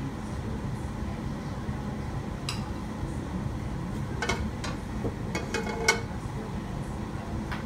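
Metal cookware knocking and clinking as a hand handles a frying pan on a gas range: a single click, then a quick cluster of clinks with one sharper ringing knock near the end. A steady low rumble lies underneath.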